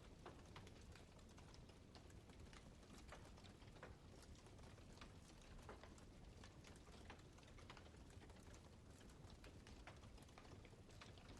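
Campfire crackling faintly, with frequent irregular sharp snaps and pops of burning wood.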